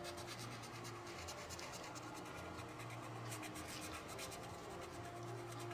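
Black marker scratching and rubbing on coloring-book paper in quick, faint back-and-forth strokes as a shoe is filled in black.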